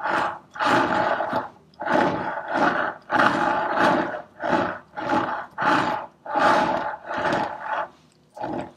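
Plastic cake scraper dragged through buttercream icing around a cake in short repeated strokes, about a dozen rasping scrapes, roughly one every three-quarters of a second.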